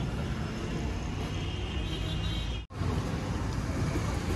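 Street traffic: vehicles running along a city road as a steady rumble, cutting out for an instant a little past halfway.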